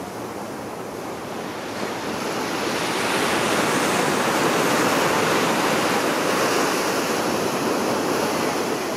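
Sea surf washing against the rocks, swelling about two seconds in and easing off near the end.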